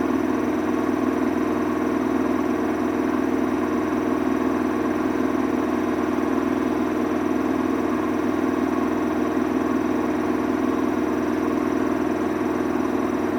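Samsung washing machine running, its motor giving a steady hum with a faint regular ripple.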